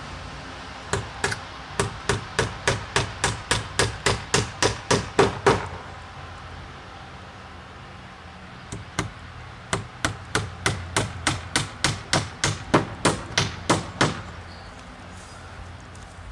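Hammer driving nails into a wooden pallet fence: two runs of quick, even blows, about three a second, with a pause of a few seconds between them.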